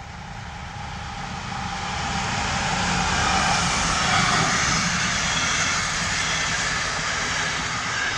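Diesel locomotive hauling a passenger train past at close range, its engine growing louder as it approaches and loudest about four seconds in. The coaches then keep rolling by behind it.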